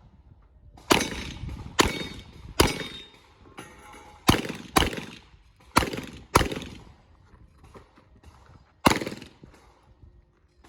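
Revolver shots fired during a timed course of fire, eight in all: irregularly spaced, several in quick pairs, with a longer pause before the last.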